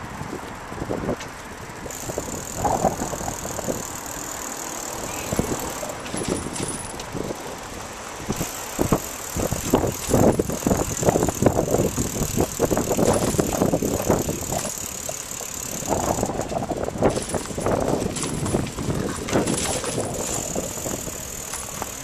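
City bicycle rattling and clattering as it is ridden over a rough street, with a constant rush of road noise. The rattling is densest through the middle stretch.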